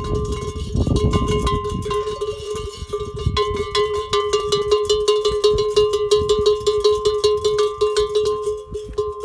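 Camel bell clanking over and over, many quick, uneven strikes a second, each leaving a steady metallic ring.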